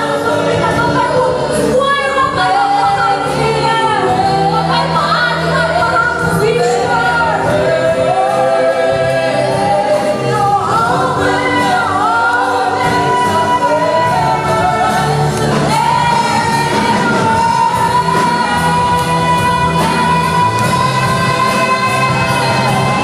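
Live worship band: several voices singing a slow song over acoustic guitar and drum kit, ending on one long held note.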